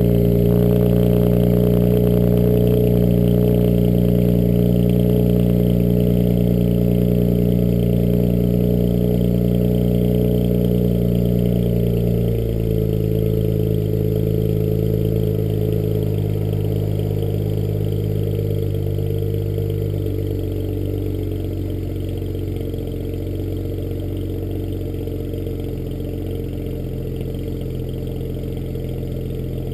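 BMW 335i's turbocharged inline-six idling through catless downpipes after a cold start. The fast idle steps down in pitch twice, about twelve seconds in and again some eight seconds later, and the exhaust grows gradually quieter as the idle settles.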